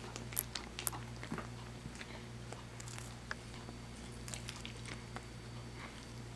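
British Shorthair cat biting and chewing a treat held in a hand: sharp clicks and crackles of its teeth, loudest in the first second, over a steady low hum.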